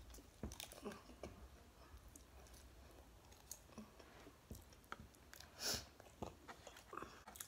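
Close-up chewing of a mouthful of mac and cheese topped with hot Cheetos: soft, quiet mouth noises with scattered small clicks. A short puff of breath comes near the end.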